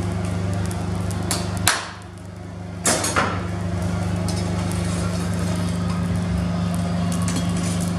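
Blacksmith's iron bar and tools knocking against the anvil and workbench: four sharp metal knocks in the first few seconds, then a few faint taps, over a steady low hum.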